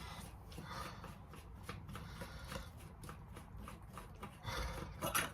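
Hands handling small engine parts: light clicks and rubbing, with a louder scrape or rustle about four and a half seconds in and again near the end.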